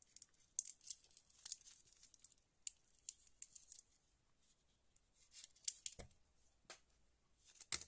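Small glass perfume sample vial being handled and opened: faint scattered clicks, scrapes and ticks, with a soft knock about six seconds in as it is set down on the cardboard.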